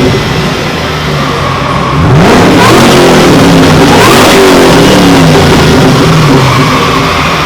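Drift car engines running loud under hard throttle, with revs climbing about two seconds in and again near four seconds.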